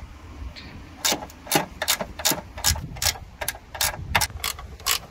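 Ratcheting spanner clicking in quick strokes, about two or three a second, as it undoes a headlight mounting bolt; the clicking starts about a second in.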